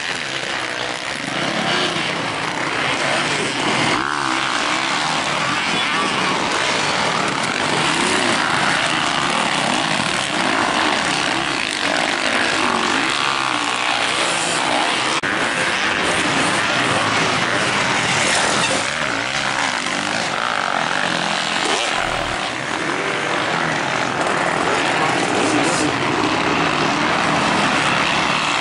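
Several motocross dirt bikes racing on a dirt track, their engines revving up and down as they accelerate through the corners and jumps, loud and continuous.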